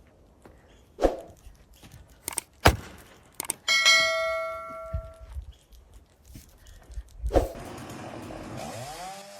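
Several sharp knocks, then a ringing metallic clang about four seconds in that dies away over a second or so. Near the end a motor spins up in pitch and settles into a steady run.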